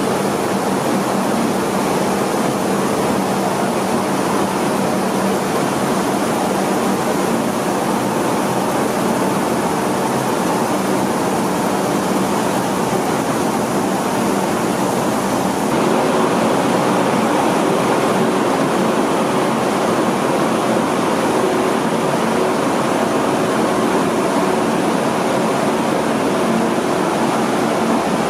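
Rice milling machines running with a steady mechanical rush and low hum as paddy passes through. The sound grows slightly louder a little past halfway.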